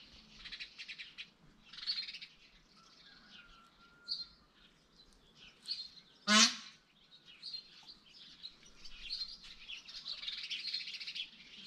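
Birds chirping and twittering in busy runs, with one loud, short harsh call about six seconds in.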